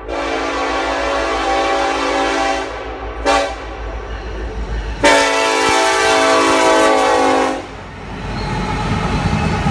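A Norfolk Southern SD70ACe's Nathan K5LLA five-chime air horn sounds a grade-crossing signal: a long blast, a short one, and a final, loudest long blast. As the horn stops near the end, the low rumble of the passing diesel locomotives and their wheels on the rail takes over.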